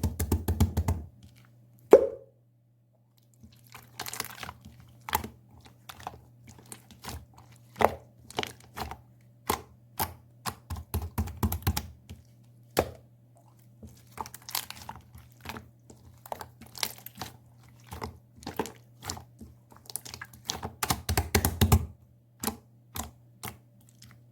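Pearl slime worked by hand, pressed and poked, giving quick sticky clicks and small air-bubble pops in irregular flurries. A steady low hum runs underneath.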